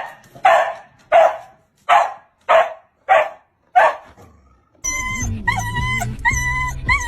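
A dog barking seven times in a steady, even rhythm, about one bark every two-thirds of a second. About five seconds in, music with a steady bass line takes over.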